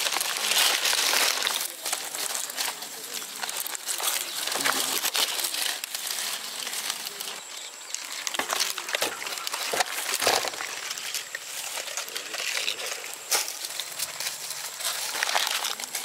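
Crinkling, crackling handling noise with many small clicks, as of dry material being pulled apart and handled.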